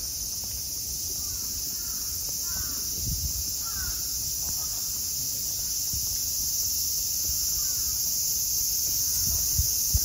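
Cicadas shrilling steadily in a dense, unbroken high-pitched chorus, with a handful of short bird calls over it and a couple of soft thumps near the end.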